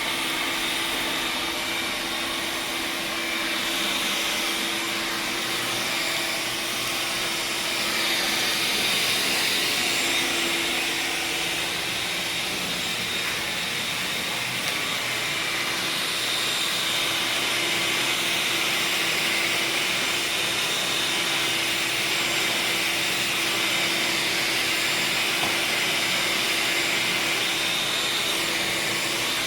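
Vacuum cleaner running steadily as a garage floor is vacuumed: a constant hum with a rushing hiss that swells and eases a little as the nozzle moves.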